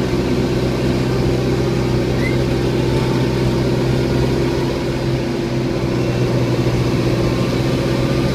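Vehicle engine and road noise from driving along, a steady even hum that neither rises nor falls.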